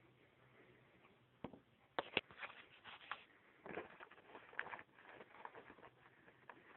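Hands fitting a new bag into the bag compartment of a Hoover WindTunnel upright vacuum: a few sharp clicks about one and a half to two seconds in, then short bursts of rustling and scraping as the bag is handled and pushed into place.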